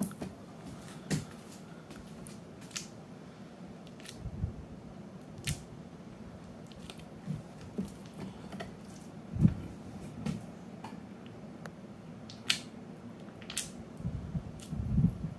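Uncapping scratcher working over a honeycomb frame: scattered sharp clicks and scrapes as its tines break the wax cappings, with a few dull knocks as the wooden frame is handled over the uncapping tank, the loudest about nine seconds in.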